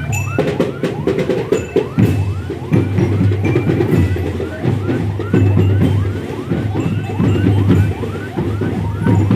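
Loud music with a pulsing bass beat and drums, over a quickly repeating rising siren-like chirp, about three a second.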